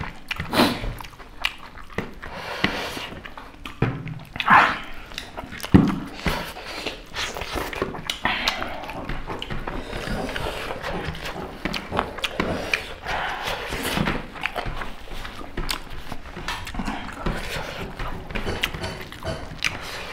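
Close-up eating noises: chewing, lip smacking and heavy breathing as two people eat spicy chicken curry with rice by hand, with fingers mixing rice on plates and a few louder bursts about four and six seconds in.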